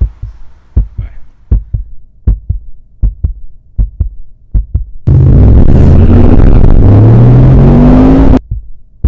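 Rhythmic low thumps, about four a second. Then, about five seconds in, a car engine comes in very loud and accelerates hard, its pitch rising, and cuts off abruptly about three seconds later.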